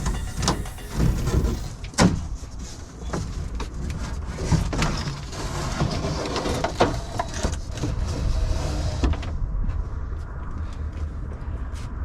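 Irregular knocks, clatter and scraping from wooden ceiling paneling being worked loose inside a van, over a steady low rumble.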